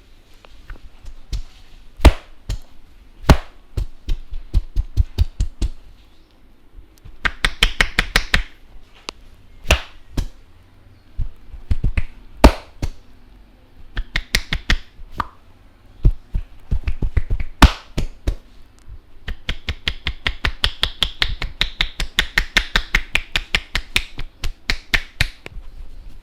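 Barber's hands striking the head, neck and back during an Indian head massage: fast runs of tapping and chopping slaps, about six or seven a second, broken by single loud sharp slaps.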